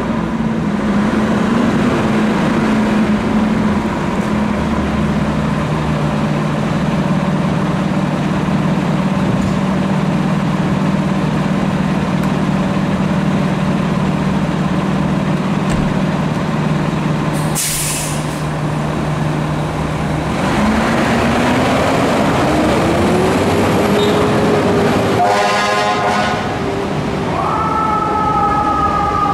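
2021 Seagrave Attacker HD fire engine's diesel running steadily as it pulls out, with a short air-brake hiss about 18 seconds in. From about 20 seconds its siren winds up in a slow rising wail, and near the end a higher siren tone rises and holds.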